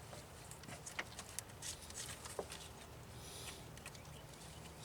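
Faint scattered clicks and rustles of a plastic wiring-harness connector being handled and fitted by hand.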